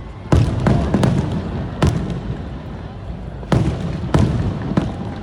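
Aerial fireworks bursting overhead: about seven sharp bangs at uneven intervals over five seconds, each trailing a low rumble.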